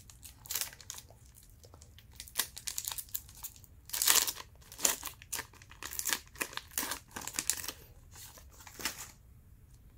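Wrapper of a Panini Hoops trading-card pack being torn open and crinkled in hand, a run of irregular rustles loudest about four seconds in that stop about nine seconds in.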